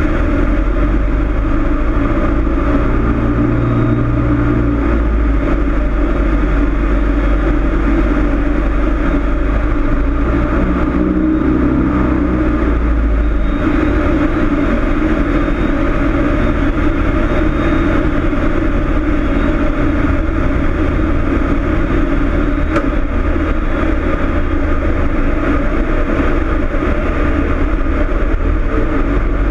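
Cessna 162 Skycatcher's Continental O-200 engine and propeller running in flight, a loud, steady drone. Its low end shifts a little about 14 seconds in.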